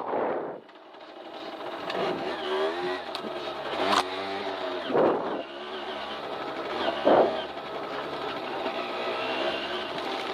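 Derbi Extreme 50cc two-stroke dirt bike engine running, its pitch wavering up and down with the throttle. There is a sharp knock about four seconds in and two brief louder bursts around five and seven seconds.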